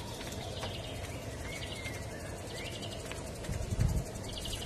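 Open-air ambience: a steady low rumble of wind with a few faint bird chirps. A cluster of soft, low thumps comes about three and a half seconds in.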